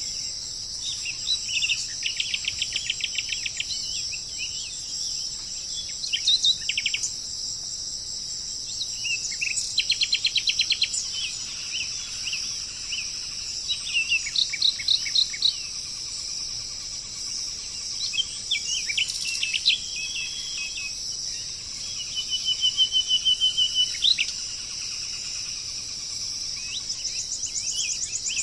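Songbirds singing in short bouts of rapid chirps and trills every few seconds, over a steady high-pitched insect chorus.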